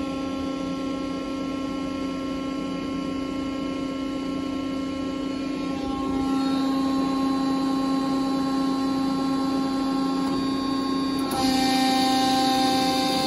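Steady hum of a 60-ton Accurpress 7606 CNC press brake's hydraulic pump motor running, getting louder about six seconds in and again near the end.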